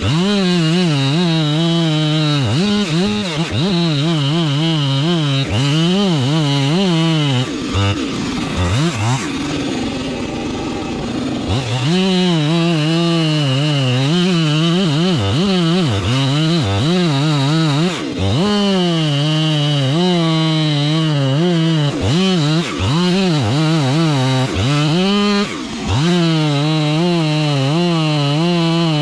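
Husqvarna 592XP two-stroke chainsaw running at full throttle in a cut through a large oak trunk, its engine pitch dipping and recovering over and over as the chain loads up. It eases off for a few seconds about a third of the way in, then goes back to full power.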